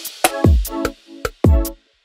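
Electronic background music: a deep booming kick drum about once a second, with sharp clicking percussion and short synth chord hits between.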